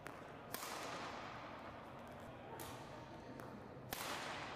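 Badminton rackets hitting a shuttlecock in a rally of clears: several sharp string hits, the loudest about half a second in and near the end, each followed by a short echo from the hall.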